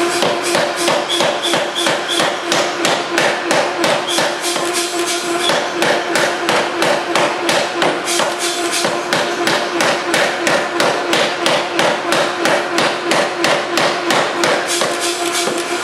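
A 3B Nazel self-contained pneumatic forging hammer's 265 lb ram striking a red-hot stainless steel billet in rapid, even blows, about three to four a second, drawing it down toward a square bar. A steady hum runs underneath the blows.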